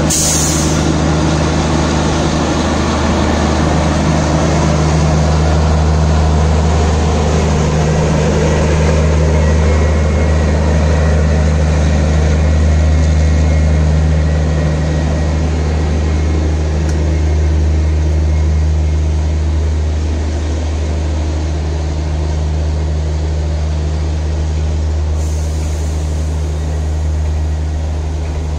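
Passenger train's coaches rolling past at close range: a steady, loud low rumble of wheels on the rails, slightly louder in the first half and easing a little later on.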